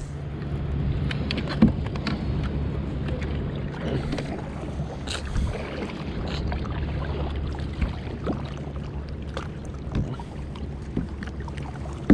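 Boat sounds on open water: a steady low motor hum, with scattered light knocks and clicks around a kayak.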